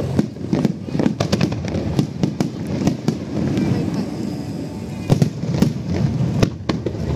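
Aerial fireworks going off in a rapid, uneven string of sharp bangs and crackles, with a few louder bangs about five seconds in.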